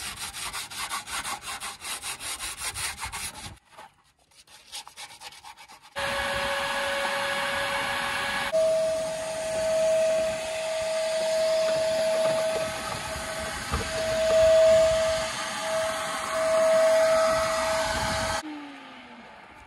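Rusty steel truck frame being scraped down by hand in quick, even strokes to prepare it for paint. Then a shop vacuum switches on and runs for about twelve seconds with a steady whine that steps up in pitch once, its loudness swelling and dipping as the hose is worked along the frame, before it cuts off suddenly.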